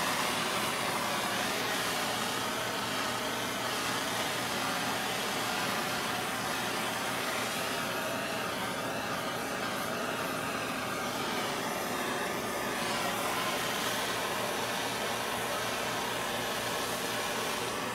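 Handheld gas torch burning with a steady hiss as its flame heats a heat-shrink boot over a coax cable splice.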